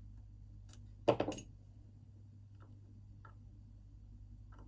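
Lock picks and tension tools clicking faintly against an Assa Twin 6000 lock's keyway as the pins are checked, with one louder knock about a second in.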